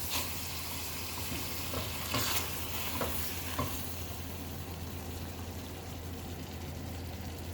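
Chicken and onions sizzling in a pan just after a little water has been added, with a few light utensil taps as it is stirred in the first few seconds.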